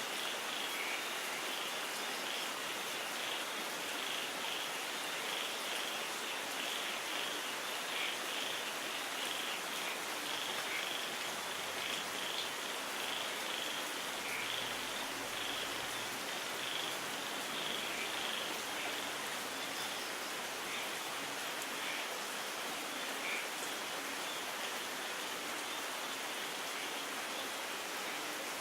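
Steady rain with a high-pitched chirping chorus of small animals over it, the chirping densest in the first half and thinning toward the end.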